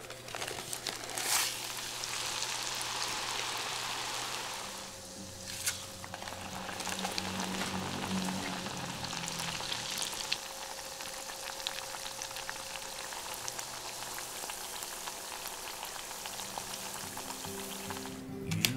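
Potato churro dough deep-frying in hot oil in a pot: a steady sizzle with scattered pops, starting suddenly about half a second in as the dough goes into the oil and easing briefly about five seconds in.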